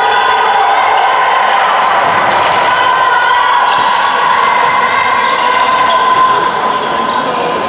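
A handball bouncing and thudding on the wooden court floor during play, with players' voices, over a steady drone that runs throughout.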